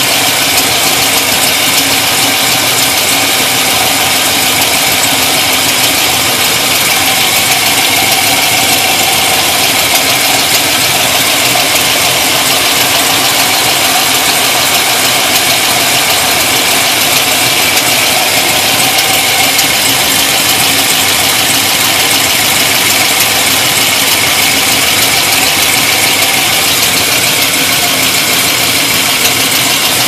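Pontiac GTO's LS2 V8 idling steadily, heard from beneath the car, with a ticking over the engine note. The tick is louder than the valve-train tick of its larger cam, and the owner has found no exhaust leak to explain it.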